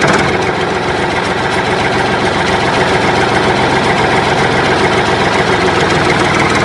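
A motor running steadily with a fast, even rattle, starting abruptly.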